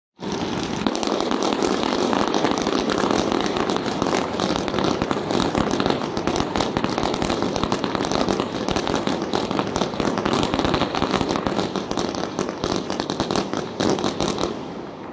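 Fireworks display: a dense, continuous barrage of launches, bangs and crackling from several batteries going off at once, tailing off near the end.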